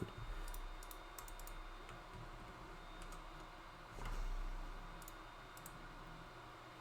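Scattered clicks of a computer mouse over a steady low hum, with a soft low thump about four seconds in.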